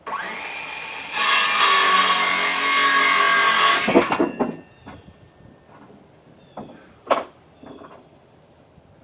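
Handheld circular saw spinning up, then cutting across a 1x4 board for about three seconds before the blade winds down. A few sharp knocks follow as the cut pieces are handled.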